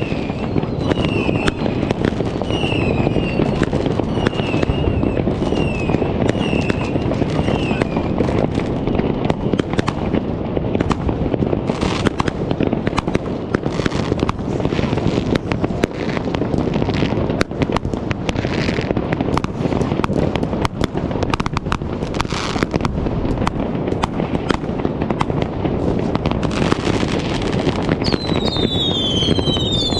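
Dense New Year's Eve fireworks and firecrackers going off without a break, a constant crackle of bangs. A wavering whistle repeats about once a second for the first several seconds, and near the end several whistling fireworks scream with falling pitch.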